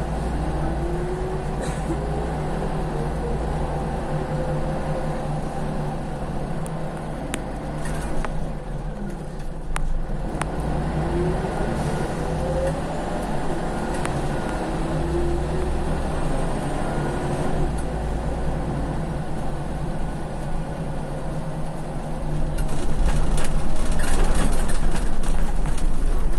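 Inside a worn-out Scania CL94UB city bus under way: a steady diesel drone with a faint whine that rises and falls several times as the bus speeds up and slows. There are a few sharp rattles, and the noise gets louder and rougher near the end.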